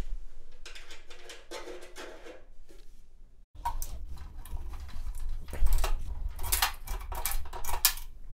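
Handling noise as cable plugs are pulled out of a guitar effects pedal and the pedal is shifted on a metal pedalboard: a run of clicks, knocks and rattles that stops briefly about three and a half seconds in.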